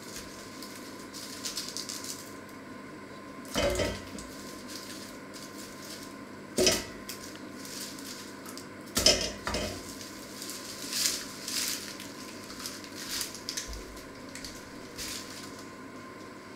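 Vegetables from a plastic mesh bag dropped into a stainless steel bowl, each landing with a metallic knock: three main knocks spaced a few seconds apart, then several smaller clinks and rustling of the mesh bag.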